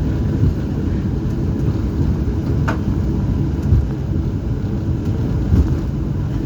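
Cabin noise of a Boeing 737-800 rolling on the ground after landing: a steady, loud low rumble of the engines and landing gear on the pavement. A few light knocks come through it.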